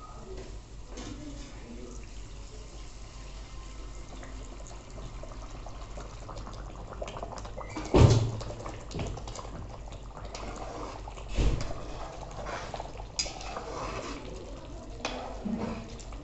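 Cooking liquid poured from a steel bowl into a kadai of hot masala and meatballs, splashing and bubbling, with a loud metal knock of the bowl against the pan about 8 seconds in and a few lighter clinks after. Near the end a steel ladle scrapes and stirs the thinned gravy.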